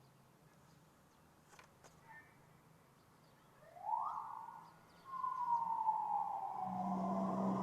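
Police siren wail: a quick rise in pitch about halfway through, then a long, smooth falling sweep, with a low steady drone joining near the end.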